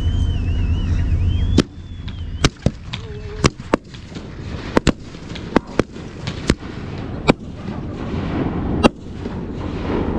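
Fireworks going off: about a dozen sharp, irregular reports over several seconds. Before the first bang there is a steady low rumble with a wavering whistle, which cuts off at the first report.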